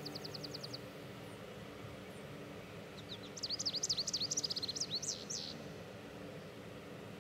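A songbird singing: a fast, even trill fades out in the first second, then a couple of seconds of varied high chirps come about halfway through, over faint background hiss.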